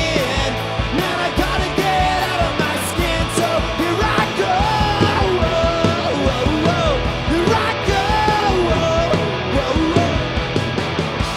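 Live pop-punk rock band playing: distorted electric guitars, bass and a drum kit, with a male lead vocal singing over them.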